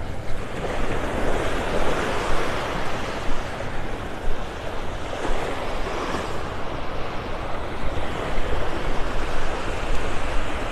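Small Gulf of Mexico waves breaking and washing up a sandy beach: a steady wash of surf that swells about two seconds in and again about six seconds in. Wind rumbles on the microphone underneath.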